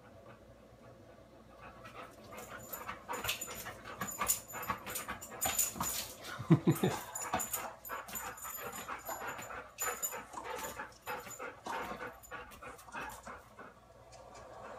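Dog whimpering and yipping excitedly while it jumps at the TV, amid a dense run of short clicks and knocks from about two seconds in until near the end. The loudest moment is a short cluster of pitched cries a little past the middle.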